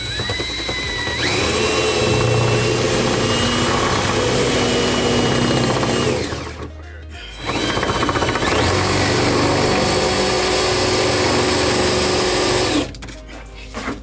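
DeWalt cordless drill boring holes through the steel floor of a pickup bed. There are two runs of about five seconds each with a short pause between them, and each starts with a rising whine as the drill spins up before holding a steady pitch.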